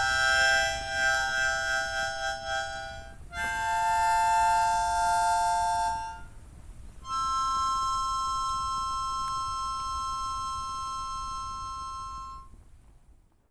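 Harmonica playing slow, long-held chords, three in turn, the last one fading away near the end.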